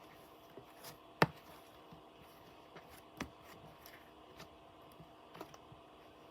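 Slime being handled, giving a few sharp clicks and pops: the loudest about a second in, others around three and five seconds in.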